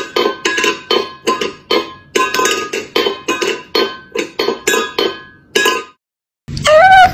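Cat pawing at a stainless steel food bowl on a tile floor, the bowl clinking and ringing with each strike at about three strikes a second, stopping abruptly. After a short gap near the end, a loud call with a bending pitch begins.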